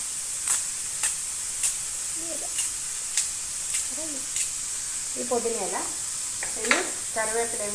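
Chopped shallots sizzling in hot oil in a steel pan, a steady frying hiss, with a series of sharp clicks as green chilli is cut with a knife over the pan. A few short voice sounds come near the middle and end.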